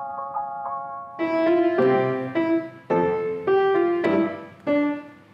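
A few light, high chiming notes, then an upright piano playing a slow phrase of about seven struck chords and notes, roughly two a second, the last one dying away.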